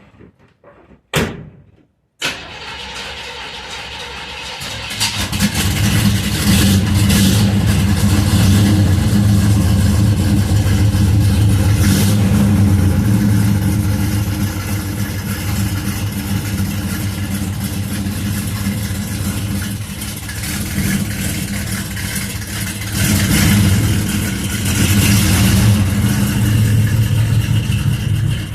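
1968 Chevy Nova's V8 running steadily through its freshly clamped 2.5-inch exhaust, with a deep, even hum. It comes in abruptly about two seconds in, grows louder a few seconds later, and swells again briefly near the end.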